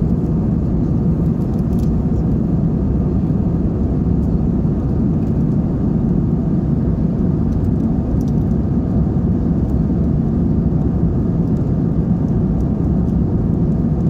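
Airliner cabin noise in flight: a steady, even low rumble of the jet engines and the air rushing past the fuselage.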